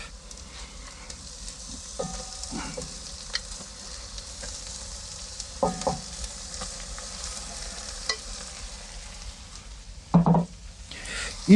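Minced pork and beef with onions frying in hot oil in a cast-iron kazan, sizzling steadily. A few brief clinks of a spoon against the plate as the meat is pushed into the pot.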